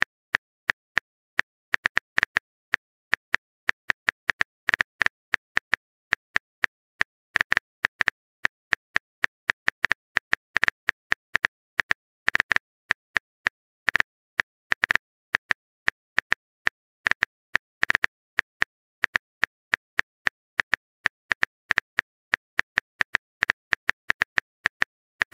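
Phone keyboard typing sound effect: a fast, uneven run of short, crisp key clicks, several a second, as a text message is typed out letter by letter.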